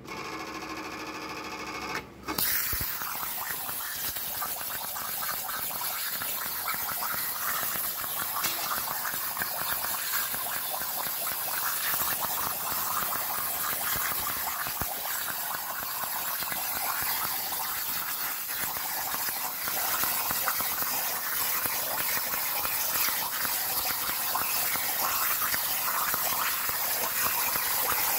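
Hypertherm Powermax 45 XP plasma torch cutting expanded metal on a CNC plasma table: the arc fires about two seconds in, after a brief steady hum, and then runs as a steady hiss with a crackle.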